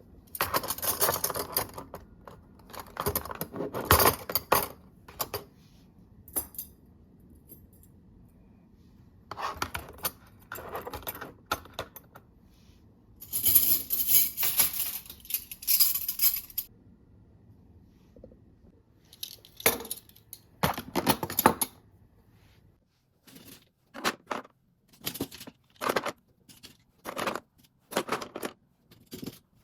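Small hard objects clinking and rattling as things are handled in a kitchen, in bursts with pauses between them. Near the end comes a run of short separate clicks, about one a second.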